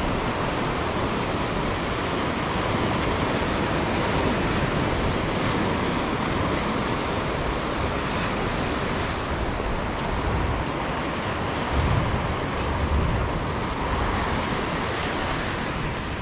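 Small waves breaking and washing up a sandy beach, a steady surf noise, with wind rumbling on the microphone now and then, most strongly about twelve seconds in.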